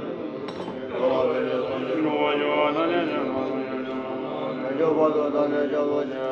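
Buddhist chanting: voices intoning a mantra in a low, sustained drone.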